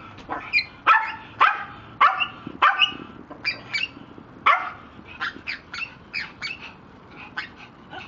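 A dog barking over and over, about two short barks a second, louder in the first three seconds and fainter after that.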